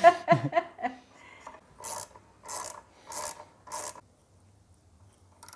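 Hand driver turning the bolts that clamp a stainless side-stand foot pad onto a motorcycle side stand: four short strokes about two-thirds of a second apart.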